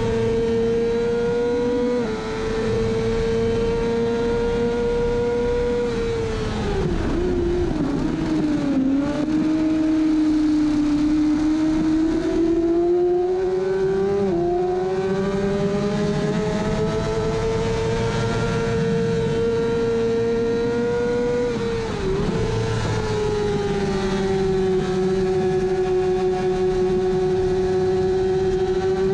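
Kawasaki ZX-6R inline-four race engine at high revs, heard onboard with wind rushing past. About six seconds in the pitch drops and wavers as the bike slows for a corner, then climbs steadily back up through the gears, with a brief dip again near the end before holding a steady high note.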